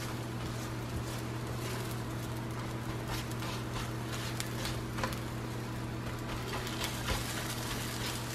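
Eggs and sliced sausage sizzling faintly on an electric griddle while a silicone spatula stirs and scrapes them, giving scattered soft scrapes and taps. A steady low hum runs underneath.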